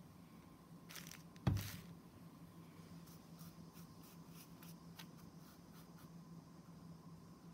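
Light handling noises over a faint steady hum: a short rustle about a second in, a single loud knock half a second later, then a run of light clicks and taps.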